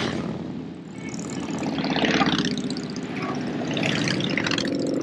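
Motorcycles riding past one after another, each engine swelling and fading as it goes by, with louder passes about two seconds in and again about four seconds in.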